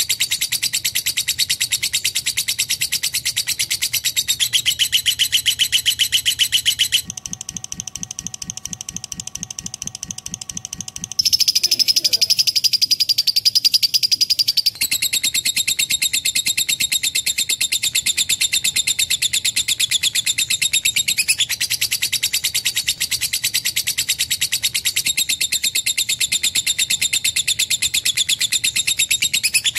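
Lovebird giving a long, rapid high-pitched chattering trill, loud and unbroken. It changes abruptly a few times, with a quieter, lower pulsing stretch about a third of the way in.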